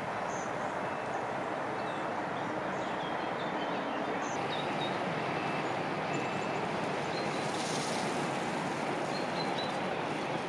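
Steady rush of flowing river water, the river running with water let out upstream, with a few faint high chirps.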